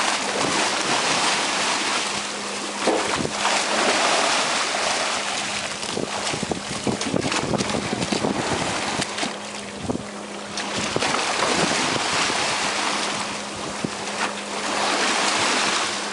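Rushing seawater of a moving boat's wake splashing against the hull, with wind on the microphone and a steady low hum under it. Sharp splashes come now and then, most between about 3 and 11 seconds in, as a large dorado thrashes alongside the boat.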